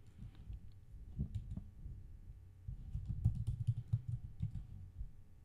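Computer keyboard typing in two short runs of keystrokes, with a pause of about a second between them.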